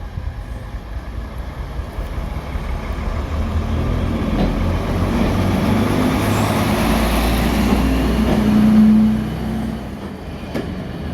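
Diesel train engine passing close by, growing louder to a peak about nine seconds in and then quickly falling away.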